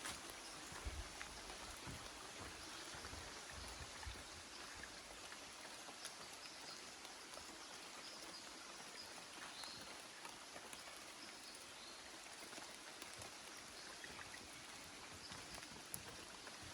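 Steady hiss of light rain falling in forest, with soft footsteps on the track in the first few seconds and a few faint high bird chirps near the end.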